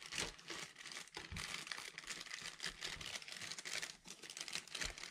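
Faint crinkling and rustling of medicine packaging, paper packets and cardboard boxes, as they are handled and packed into a wicker basket: a steady stream of small, irregular crackles.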